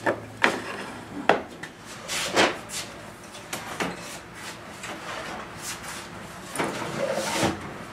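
Mahogany drawers being pulled out of an antique desk: several sharp wooden knocks, then wood scraping on wood as a drawer slides out near the end.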